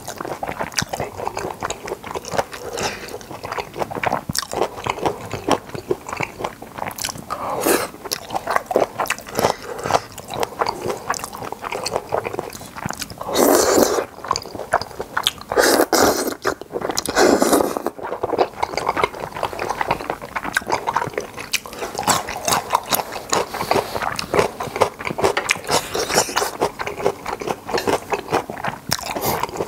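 Close-miked chewing and biting of boneless chicken feet and Chinese glass noodles: wet, quick mouth sounds all through, with a few louder stretches about halfway through.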